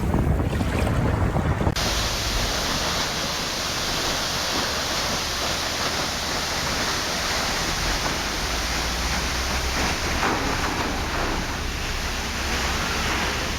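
Rushing water, a steady, even hiss, cutting in abruptly about two seconds in after a lower, rumbling sound of wind and waves.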